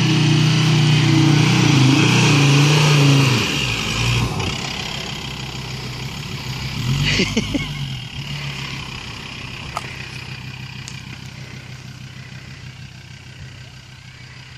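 Ford Ranger PX's 3.2 five-cylinder turbodiesel engine revving hard under load as the ute climbs a soft sand dune, its pitch rising and falling over the first few seconds. It then eases off, surges briefly about seven seconds in as it passes close, and fades away.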